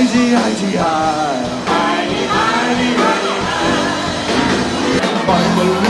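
Live rock band playing with sung vocals over drums and instruments.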